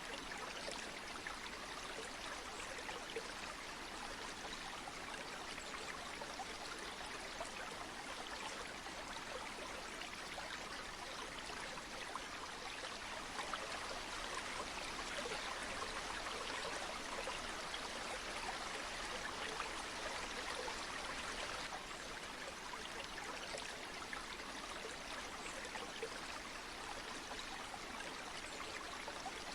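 Flowing river water running steadily, an even rushing noise with fine trickling detail, a little louder in the middle.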